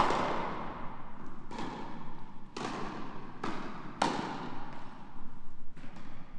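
A tennis rally in a large indoor hall: about half a dozen sharp pops of racket hits and ball bounces, each ringing on in the hall's echo.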